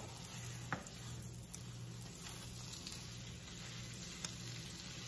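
An egg omelette sizzling softly in a ceramic-coated nonstick frying pan, with a couple of light clicks of the spatula against the pan as it is worked under the omelette and turned over, one about a second in and one near the end.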